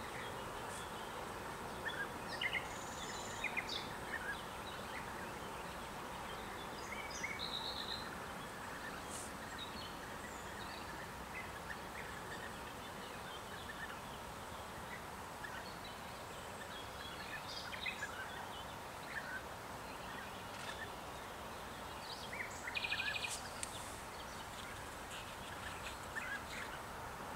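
Birds calling sparsely over a steady outdoor hiss: short high chirps now and then, and one brief rapid trill late on.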